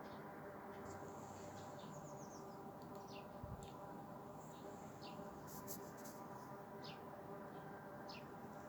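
Faint, unchanging hum made of several steady tones at once, of unknown origin: the so-called 'Hum' heard in Lieksa, Finland. Small birds chirp over it with short falling calls, and there is a brief low thump about three and a half seconds in.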